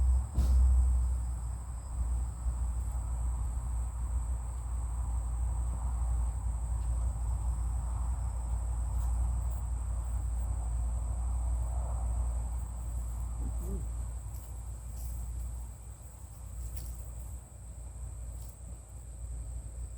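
Crickets chirring steadily in a high, unbroken drone over a low rumble, with a few faint clicks.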